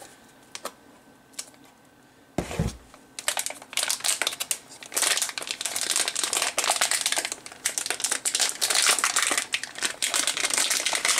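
A single knock about two seconds in, then continuous crinkling of a plastic packaging bag being handled and pulled at around a small electronic device.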